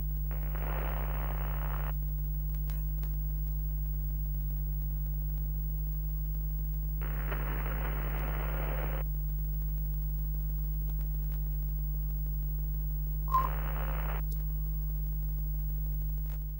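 Steady low electrical hum with three bursts of static hiss: about a second in, at around seven to nine seconds, and briefly near the end. A few faint clicks, and a short sharp blip just before the last burst, the loudest moment.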